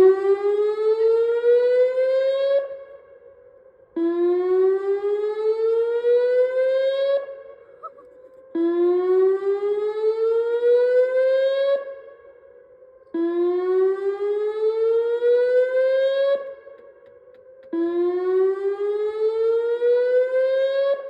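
Whelen WPS 2905 electronic warning siren sounding a whoop signal: a tone that rises steadily in pitch for about three seconds, then cuts off, repeated about every four and a half seconds. It is the test signal of a dam failure warning system.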